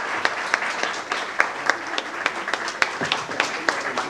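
Audience applauding: many hands clapping in a steady patter, with a few sharper single claps standing out.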